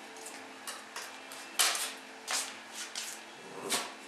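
A handful of short, sharp knocks and clinks, the loudest about a second and a half in, over a faint steady hum.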